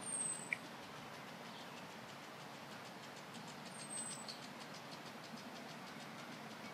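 Faint steady background hiss, with a brief high falling chirp at the start and again about four seconds in, and a small click just after the first chirp.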